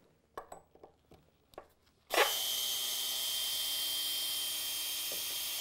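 Power drill-driver with a Phillips bit backing a screw out of a wooden pallet block. A few light handling clicks, then about two seconds in the motor starts suddenly and runs at a steady high whine.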